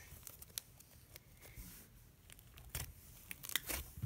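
Thick butter slime stretched and pulled apart by hand, with faint scattered clicks and crackles as it tears, growing busier near the end.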